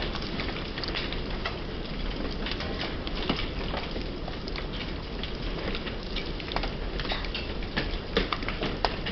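Pea-sized hail mixed with rain falling on a wooden deck: a steady patter with many sharp, irregular ticks of hailstones striking.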